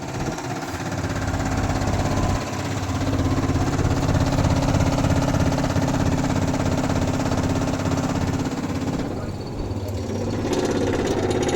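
Air conditioner outdoor unit running with a steady hum and a fast, pulsing vibration rattle. An insect nest built inside the unit is making it shake. About nine seconds in, the hum drops out and the sound changes.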